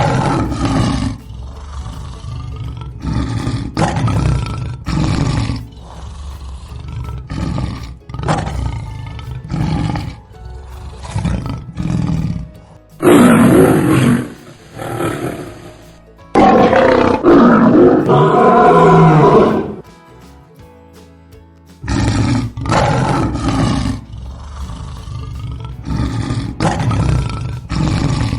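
Lion roaring: a run of short grunting roars about once a second, with two louder, longer roars in the middle, over music.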